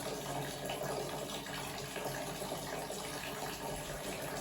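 A steady stream of water siphoned from a bottle hung from the ceiling, falling into a big bowl and splashing evenly without a break.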